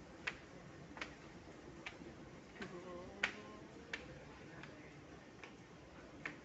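Footsteps on a polished stone floor: a steady walking rhythm of sharp clicks, about one step every three-quarters of a second, the loudest about three seconds in.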